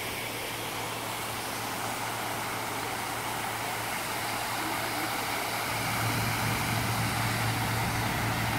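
Large public fountain's water jets splashing into the basin: a steady rush of falling water with a low hum underneath, growing a little louder about six seconds in.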